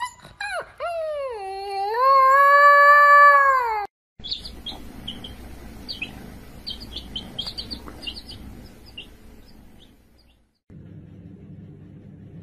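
An animal's long, loud cry that dips in pitch and then holds steady, lasting about four seconds. After an abrupt cut comes a string of short, high chirps, and near the end a low steady hum.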